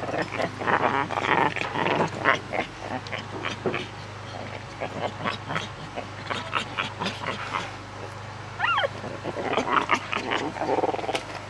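Young howler monkeys play-fighting: scuffling and short vocal noises, with a single squeak that rises and falls about nine seconds in.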